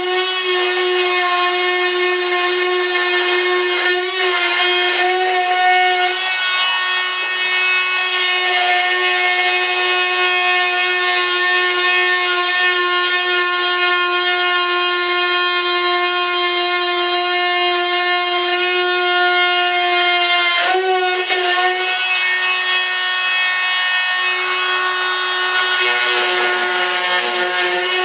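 Handheld electric rotary tool running at a steady speed with a constant high-pitched whine, wavering briefly twice.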